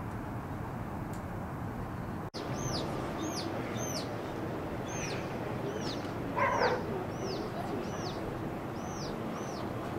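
A series of about a dozen short, high, whistled calls from an animal, each dropping in pitch, repeated every half second to a second from a couple of seconds in, over steady background noise. A brief louder noise sounds a little past the middle.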